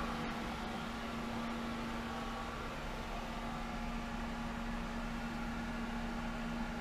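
Hayward Super Pump VS (SP2603VSP) variable-speed pool pump running steadily at 2000 RPM, moving about 40 gallons per minute through 1.5-inch plumbing. It gives a steady hum with one constant tone over a faint hiss.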